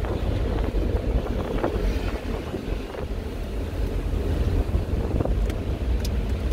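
Mercedes-Benz E320 Cabriolet (W124) driving with the top down. Wind rushes over the open cabin and buffets the microphone over a steady low rumble of engine and road noise.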